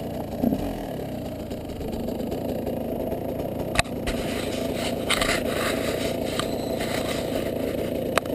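Enduro motorcycle engine running steadily at low revs, heard through a helmet camera. From about four seconds in, scraping and rustling of the camera being handled is added, with a sharp click just before that and another near the end.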